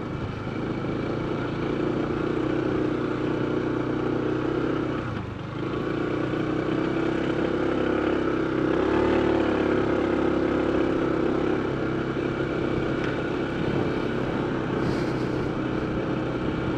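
Honda ADV 160 scooter's single-cylinder engine running steadily while riding, easing off briefly about five seconds in before picking up again.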